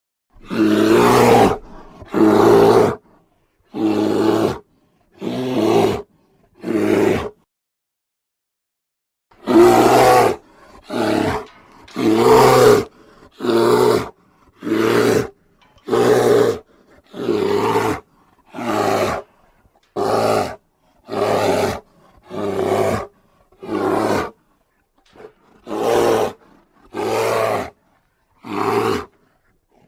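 Bear roar sound effects, about twenty of them one after another. Each roar lasts around a second, with short silent gaps between them and one longer pause about seven seconds in.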